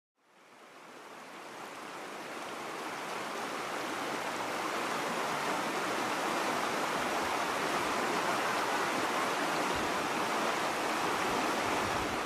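Shallow mountain river rushing over a stony bed, a steady wash of water noise that fades in over the first few seconds.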